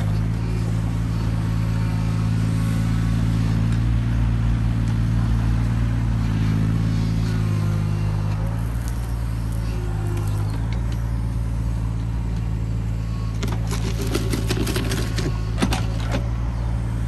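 Mini excavator's diesel engine running steadily under working load as the hydraulic arm and bucket move, the engine sound heavier for several seconds in the first half, then easing. About three-quarters of the way through, a run of sharp metallic clanks and rattles as the machine swings round.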